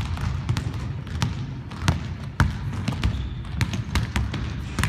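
Basketball bouncing on a hardwood gym floor as it is dribbled, about two to three uneven bounces a second.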